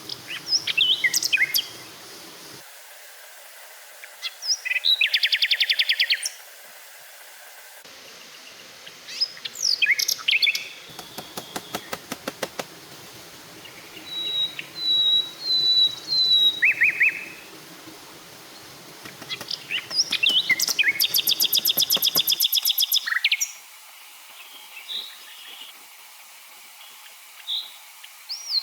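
Forest birds calling and singing: several kinds of high chirps, short whistled notes and rapid buzzing trills, one call often overlapping another.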